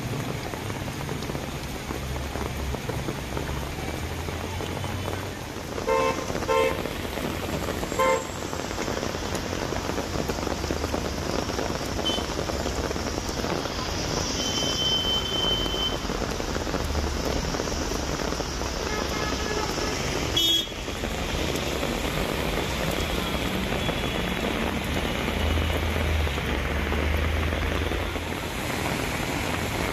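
Steady rain and traffic noise on a flooded street, with short vehicle horn toots several times, three of them close together about a fifth of the way in. A single sharp click comes about two-thirds of the way through.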